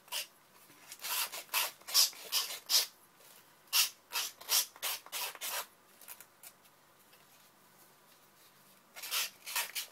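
Nail file (emery board) rasping along the edge of a napkin-covered cardstock bookmark to sand it, in quick strokes. The strokes come in two runs, with a pause of about three seconds before a few final strokes near the end.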